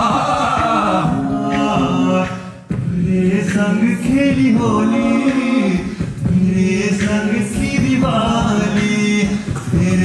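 South Asian fusion a cappella group singing: a male lead voice over the group's sung backing with no instruments. About two and a half seconds in the sound briefly drops away, then the whole group comes back in together.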